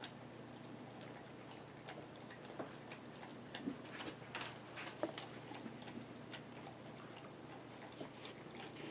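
Sheltie licking and eating out of a small glass dish: faint, irregular clicks and clinks of tongue and teeth against the glass.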